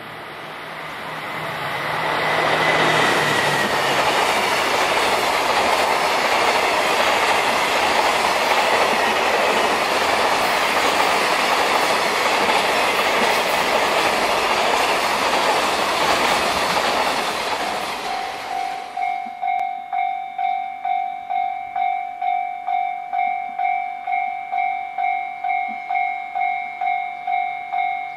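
JR Freight DF200 diesel locomotive and its container wagons passing at speed, a loud steady rumble and rattle of wheels on rail that builds over the first few seconds and stops about 19 seconds in. Then an electronic warning bell rings steadily at about two strokes a second.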